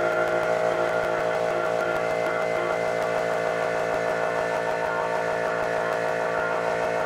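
CNC milling machine spindle running a 4-flute carbide end mill at 4400 RPM, cutting Damascus steel in an adaptive clearing pass, with coolant spraying onto the cut. A steady whine of several pitches that holds unchanged.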